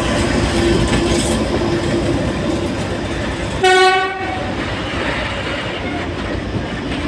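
Freight train of open-top wagons rolling past at speed, with steady wheel-on-rail noise and clickety-clack. A single short train horn blast of about half a second sounds about three and a half seconds in.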